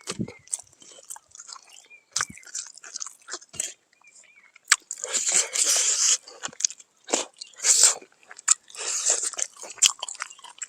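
A person chewing and biting into crunchy cooked pork close to the microphone, irregular wet crunches coming in bursts, the heaviest about halfway through.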